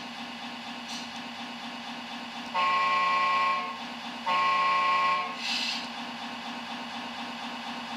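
Servonaut sound module in an RC Scania R620 truck playing a simulated diesel idle through its loudspeaker, with two horn blasts of about a second each in quick succession, followed by a brief hiss.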